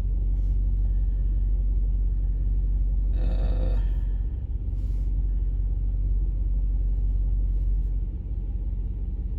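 2006 Pontiac GTO's LS2 V8 idling steadily, running on all eight cylinders after a fuel injector replacement. A brief rustling noise sounds over it about three seconds in.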